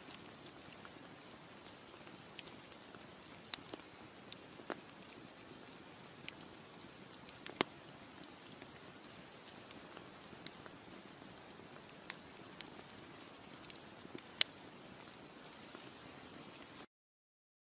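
Wood campfire burning: a steady soft hiss with scattered sharp pops and crackles from the logs. The loudest pops come a little before halfway and again near the end. The sound cuts off suddenly just before the end.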